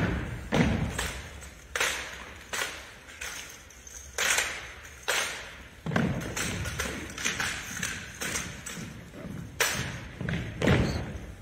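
Armed drill team's rifle handling and footwork: a series of sharp, irregularly spaced knocks, slaps and stomps from hands on rifle stocks, rifle butts and boots on a hardwood gym floor, each echoing in the large hall.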